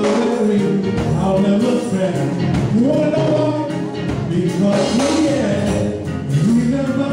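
Live gospel song: a male lead singer on a microphone, backed by a choir and a band with drums.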